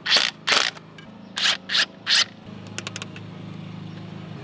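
Hand ratchet on an extension turning a fastener: five short ratcheting strokes, a pair and then three, followed by a few faint clicks, over a steady low hum.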